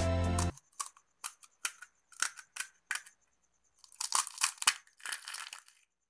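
Crisp fried semolina pani puri shell crackling as it is squeezed and crushed in the hand: a string of sharp single crunches, then a denser run of crackling near the end as the shell breaks apart.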